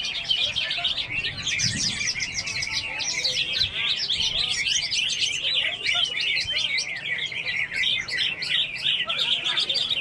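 Many caged songbirds singing at once: a dense, unbroken chorus of overlapping high chirps.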